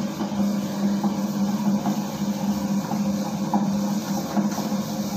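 Homemade electric dough mixer running, turning a ball of donut dough in a stainless steel bowl: a steady low motor hum.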